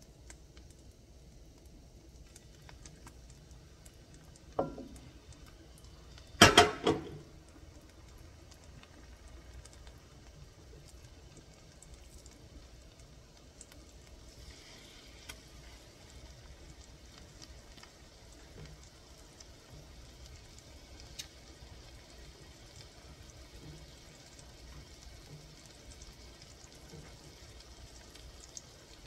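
Pork chops frying in butter in a cast iron skillet, a low sizzle that grows a little fuller in the second half. A small knock comes about four and a half seconds in, and a brief loud clatter of a few sharp strokes about two seconds later.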